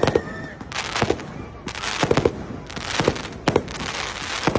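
Fireworks going off: sharp bangs in clusters about once a second, each followed by a crackling hiss.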